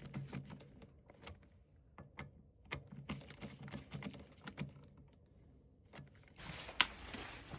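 Scattered small clicks and taps of hands working on a furnace control board's low-voltage wiring, disconnecting the control wire to the outdoor condenser. A brief rustle with one sharp click comes near the end.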